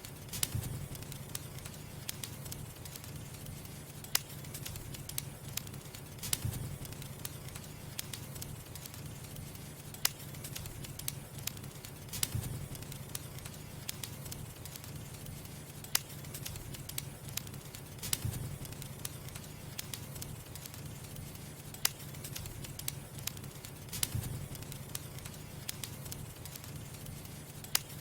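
Firewood burning, with scattered crackles and sharp pops over a steady low rumble.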